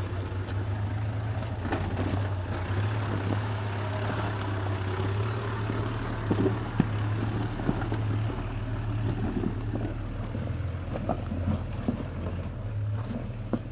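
Toyota Land Cruiser 80 Series engine running steadily at low revs while it crawls over a steep rocky track, with a few sharp knocks from rocks and suspension about halfway through and again near the end.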